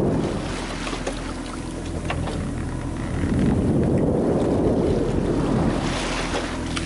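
Wind buffeting the microphone over the rush of the sea along a sailboat's hull, swelling and easing in gusts, with a few light clicks and a hiss of water rising near the end.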